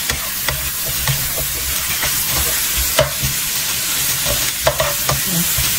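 Squid pieces frying with a steady sizzle in a nonstick wok while a spatula stirs and tosses them, with scattered scrapes and clicks of the spatula against the pan.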